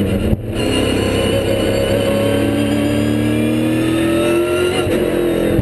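Holden Commodore V8 Supercar's 5.0-litre V8 engine running hard on track. It cuts out briefly for a gear change about half a second in, then rises steadily in pitch as the car accelerates.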